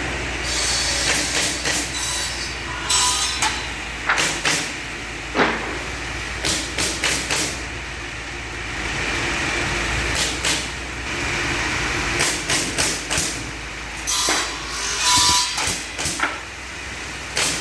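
Automatic two-blade wood-cutting machine running with a steady low hum, under repeated sharp, irregular knocks and short bursts of hissing noise.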